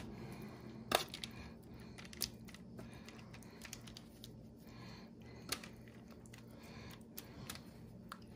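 Basting brush dabbing barbecue sauce onto ribs on a foil-lined pan, with a few light clicks and taps against the dish, the sharpest about a second in, over a faint steady low hum.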